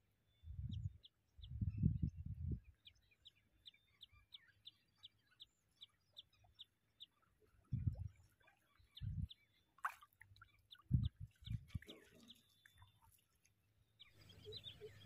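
A bird calling in a steady run of short, high chirps, about three a second, over several dull low thumps that are the loudest sounds, with one sharp click a little after the middle.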